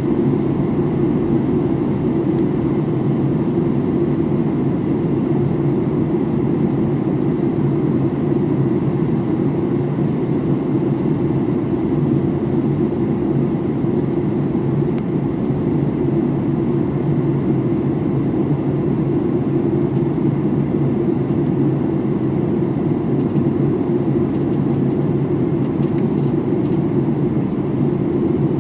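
Airliner cabin noise in flight: a steady, even low rush of engine and airflow noise heard from inside the cabin, with a faint steady hum.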